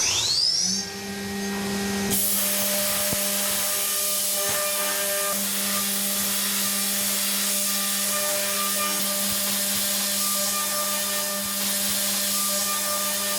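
CNC machine spindle with a FULLCUT MILL indexable end mill: a rising whine as the spindle speeds up, then a steady tone. A dense steady hiss joins about two seconds in as the milling cut runs.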